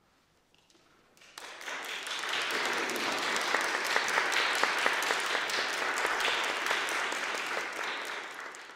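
Audience applauding: dense clapping starts suddenly about a second in, holds steady, and dies away at the end.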